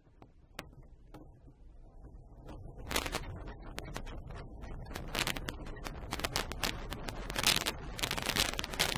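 AS-K 21 glider rolling over grass on its takeoff roll, heard inside the cockpit: irregular knocks and rattles from the wheel and airframe over a low rumble, growing louder and denser as it gathers speed.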